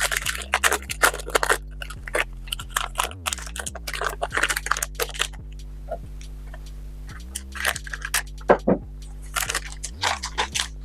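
Hockey trading cards and their packs being handled: irregular clusters of short, crisp crinkles, flicks and snaps as cards are shuffled and sorted.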